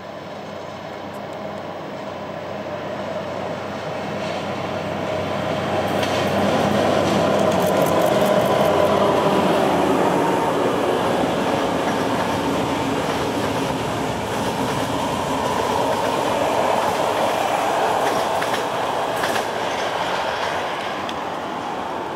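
A train running past on the track, growing louder to its loudest about eight seconds in and staying loud as the cars go by, with a few short clicks from the wheels.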